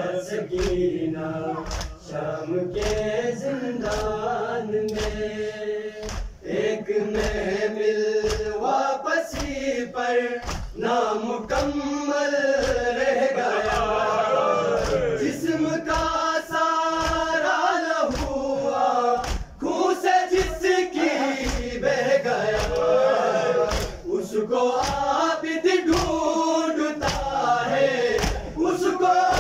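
A crowd of men chanting a noha, a Shia mourning lament, in unison, kept in time by a steady beat of sharp thuds from rhythmic chest-beating (matam).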